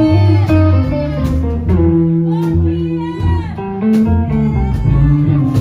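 Live rockabilly band playing an instrumental break: a lead line on a hollow-body electric guitar, with bent notes, over upright bass and drums.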